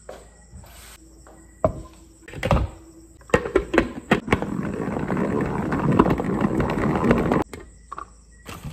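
Plastic salad spinner being used on washed lettuce: a few knocks and clicks as the basket goes into the bowl and the lid is fitted, then a loud whirring rattle of the basket spinning for about three seconds, which stops suddenly.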